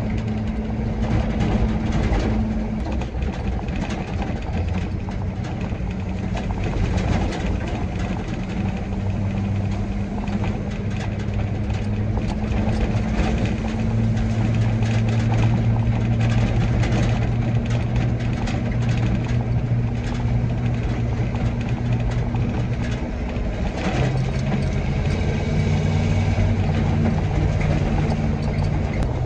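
Military truck's engine running while driving on the road, with road noise throughout; the engine note steps up in pitch about 24 seconds in.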